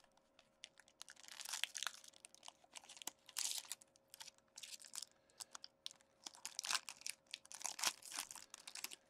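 Foil wrapper of an Upper Deck Engrained hockey card pack being torn open and crinkled by hand, in irregular crackling bursts that are loudest about seven to eight seconds in.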